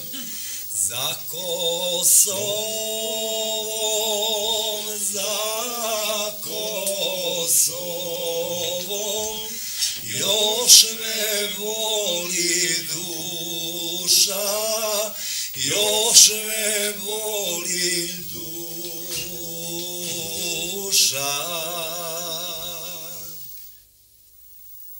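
A man singing a slow song unaccompanied, his voice wavering with vibrato through long phrases broken by short pauses; it fades out shortly before the end.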